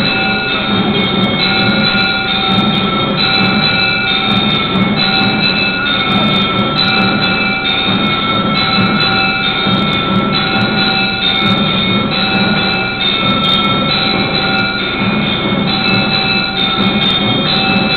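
Temple bells ringing continuously and loudly, their tones alternating about twice a second over a steady drum-like pulse: the music that accompanies the arati lamp offering.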